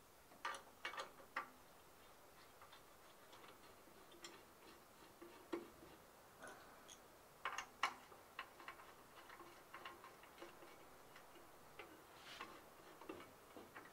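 Faint, irregular clicks and light knocks of plastic locking knobs being threaded on and tightened under a benchtop band saw's table, with a cluster of sharper clicks near the start and another just past halfway.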